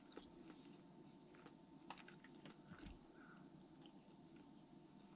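Quiet eating sounds: a dozen faint, sharp clicks of a metal fork against a plate, with soft chewing of tender pot roast, over a faint steady hum.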